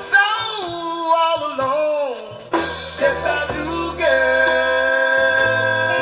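Early-1970s soul ballad playing from a vinyl single: a male singer's voice slides through long, drawn-out notes for about the first two seconds over the band. From about four seconds in, the music settles into steady held chords.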